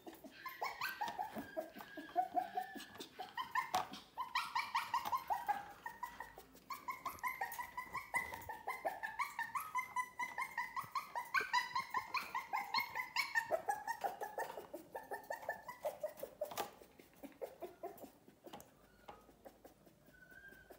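Puppy whining: a long run of short, high-pitched whimpering cries, several a second, that fade away after about sixteen seconds, with one sharp click near then.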